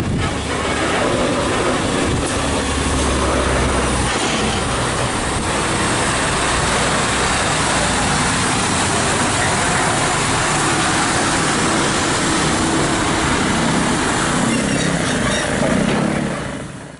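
Diesel engines of heavy MAN TGS 40.440 trucks running at low speed, with road and tyre noise. It stays steady throughout and fades out near the end.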